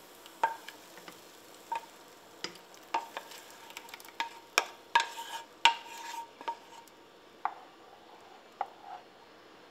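Wooden spoon stirring toyga soup in a stainless steel pot, knocking against the pot's sides in irregular clicks, several of them leaving a short metallic ring. The knocks come thickest in the middle and thin out near the end.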